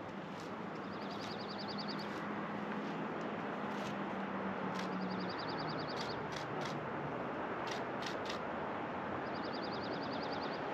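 A small songbird sings a short, rapid trill three times, a few seconds apart, over a steady rushing background with a low hum.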